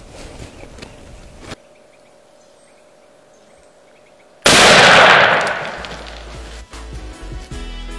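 A single loud shotgun blast about four and a half seconds in, dying away over roughly a second: a turkey hunter's shot at a gobbler. Music comes in near the end.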